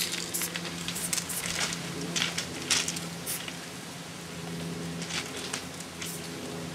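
Aerosol spray-paint can hissing in short strokes against a steel freight car, over a steady low hum.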